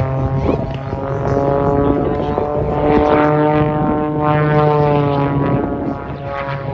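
Pitts S-1-11B aerobatic biplane's piston engine and propeller droning steadily, its pitch swelling slightly and easing back down over a few seconds.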